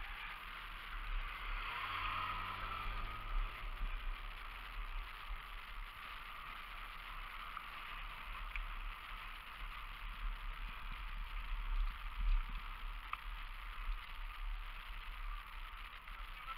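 Steady wind and tyre noise from a road bicycle rolling on a tarmac lane, with wind rumble on the microphone. A motorcycle engine passes about two seconds in.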